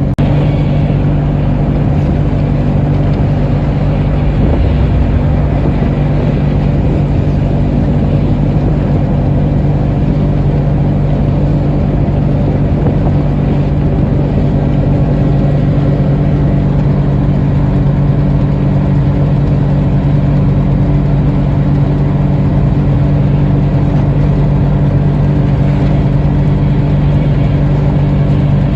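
A motor vehicle's engine running at a steady speed, a constant hum over road noise.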